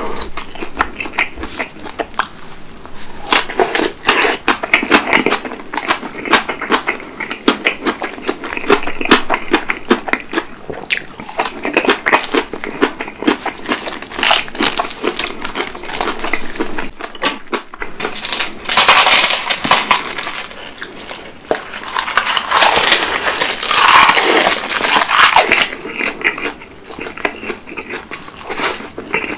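Close-miked eating of napa cabbage kimchi and roasted seaweed (gim) with rice: a dense run of crunching, wet chewing and crackling bites, louder in two stretches in the second half.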